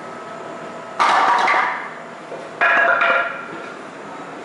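Two sharp clatters of wooden cribbing blocks dropped onto a concrete floor, about a second and a half apart, each with a short ringing tail.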